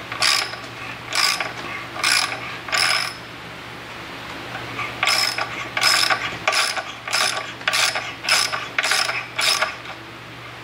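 Ratcheting tap wrench clicking in short rattling bursts as a tap cuts threads into a steel plate. Four bursts about a second apart, a pause of about two seconds, then a quicker run of about ten bursts.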